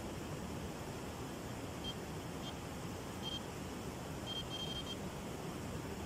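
Electronic carp bite alarm beeping at one high pitch: a few single beeps from about two seconds in, then a quicker string of beeps near the end, signalling line movement at the rod. A steady hiss of background noise lies under it.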